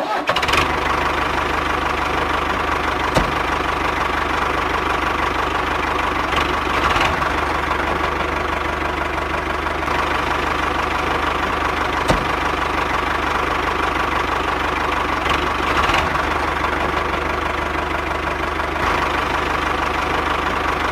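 An engine idling steadily with a regular knock, in the manner of a diesel engine, starting abruptly.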